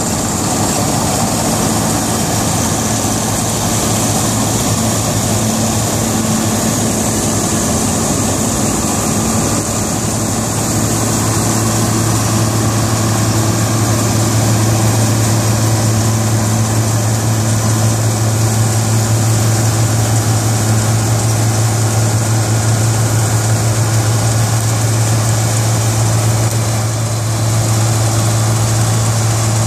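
Claas Mercator 60 combine harvester running while harvesting wheat: a steady engine drone over the noise of its working machinery, with the low hum growing stronger about twelve seconds in.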